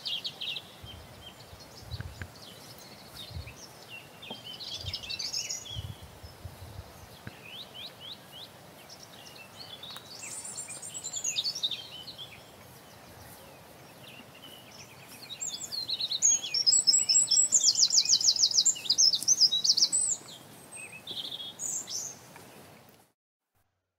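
Outdoor birdsong over a steady hiss of background noise: scattered high chirps and short phrases, then a loud, rapid trilling song lasting about four seconds. A few low thumps sound in the first quarter, and the sound cuts off shortly before the end.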